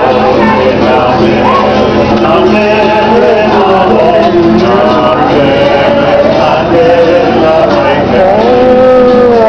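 A group of men singing together in long, gliding notes, with a string instrument strummed along.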